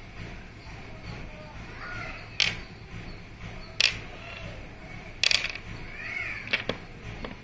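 Lacquered Channapatna wooden toy pieces clacking as they are set down and stacked on the pegs of a wooden base: about five sharp wooden clicks roughly a second apart, one of them doubled about five seconds in.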